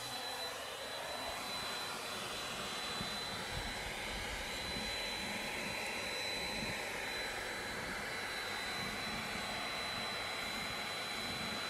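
Bee vacuum running steadily, sucking live honey bees off the comb through a flexible corrugated hose: a constant rush of air with a thin high whine over it.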